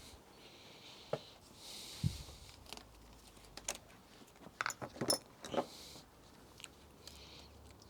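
Light metallic clinks and knocks of hand tools and small bike parts being handled, with a quick cluster of clinks about five seconds in and some rustling.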